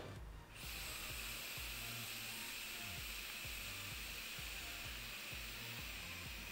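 Squonk-mod e-cigarette coil firing through one long draw: a steady hiss of e-liquid vaporising and air pulled through the atomiser, starting about half a second in.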